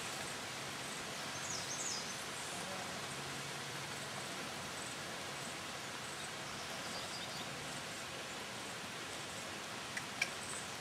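Steady outdoor background hiss with faint rustling of a plastic tarp being moved and draped over a horse's back. A few faint high chirps come early, and a couple of light clicks come near the end.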